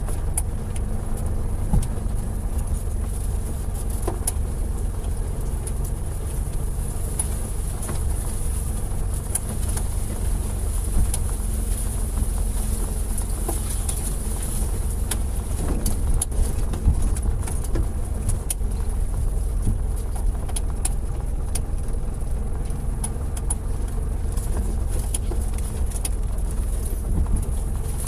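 Car engine running steadily under load while towing a heavily loaded firewood trailer, heard from inside the cabin as a constant low rumble. The body rattles over a rutted dirt track, with occasional sharp knocks.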